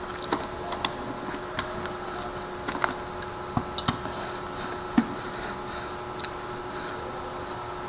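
Sharp plastic clicks and taps as an action camera's waterproof housing and a helmet chin-mount are handled and fitted together, scattered irregularly, the sharpest about five seconds in. A faint steady hum runs underneath.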